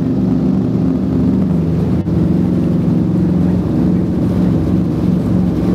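Douglas DC-7B's four Wright R-3350 Turbo-Compound radial piston engines running, heard inside the cabin as a steady loud drone with a brief dip about two seconds in.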